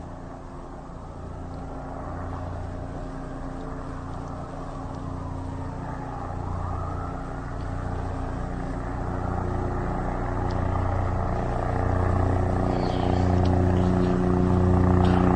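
Enstrom 480B turbine helicopter running, growing steadily louder, with a steady hum and a regular low throb.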